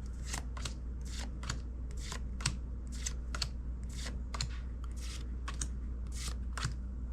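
Pokémon trading cards being flipped through one at a time, each card sliding off the stack with a short swish, about two a second, over a low steady hum.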